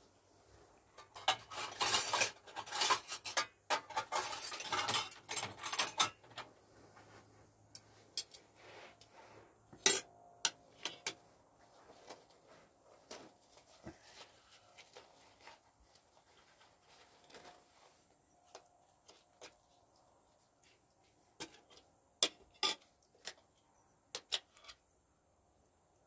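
Meal sounds: scattered clinks and taps of cutlery and dishes on a metal food tray, with a stretch of dense crinkly rustling in the first few seconds and a sharp clink about ten seconds in.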